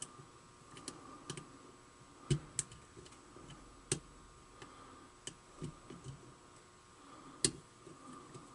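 Small, sharp clicks and ticks at irregular intervals as a lock pick and tension wrench work the pins of a brass Prevost pin-tumbler lock. The loudest click comes near the end.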